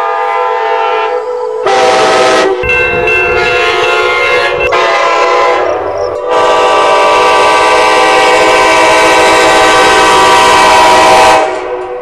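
Nathan K5LA five-chime horn on a GO Transit Bombardier BiLevel cab car sounding several blasts of its steady chord. There is a rush of noise under the horn from about two to six seconds in, then one long held blast that cuts off just before the end.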